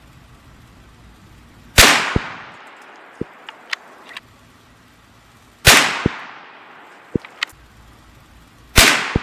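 Three shots from a bolt-action .350 Legend rifle, roughly three to four seconds apart, each a sharp report that dies away over most of a second. Lighter clicks between the shots as the bolt is worked to chamber the next round.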